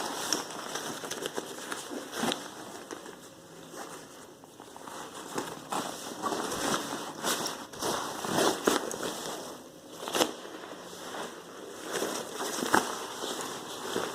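A hiking rucksack being handled: fabric rustling and crinkling, broken by irregular sharp clicks, several of them louder.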